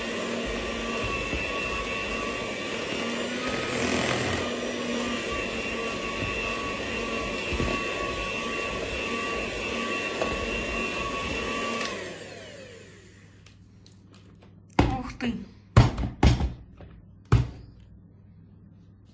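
Electric hand mixer running steadily as it beats chocolate cake batter in a bowl, then switched off, its whine falling in pitch as the motor winds down. Several loud, sharp knocks follow as the batter-coated beaters are knocked against the bowl.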